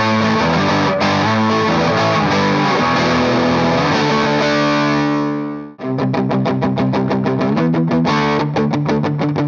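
Bacchus Universe Series electric guitar played with overdrive on the neck pickup. It plays picked notes into a held chord that cuts off a little under six seconds in, then quick, evenly picked chords.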